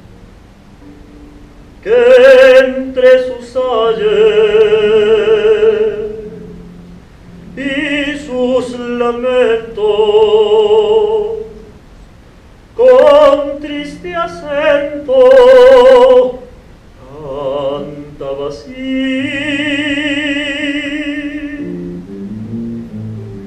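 A solo voice singing a slow song in operatic style with wide vibrato, in four long phrases with short breaks between them, over a soft guitar accompaniment.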